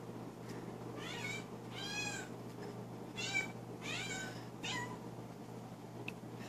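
Cat meowing: five short, high meows with rising-and-falling pitch in quick succession, starting about a second in.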